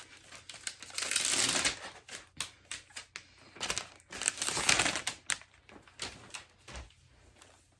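Crinkling and rustling of packaging being handled during an unboxing, in two longer rustles about one second in and about four seconds in, with scattered light clicks and taps between.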